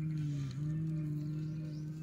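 A long, low, steady drone with a voice-like tone, dipping briefly in pitch twice near the start.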